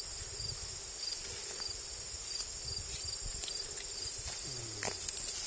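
Steady, high-pitched chorus of crickets and other insects, with a few faint scattered clicks.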